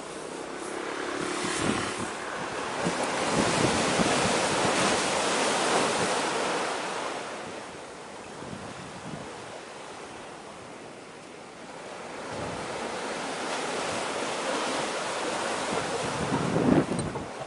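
Wind buffeting the microphone over the wash of sea waves, swelling and easing in long gusts, with a few hard buffets near the end.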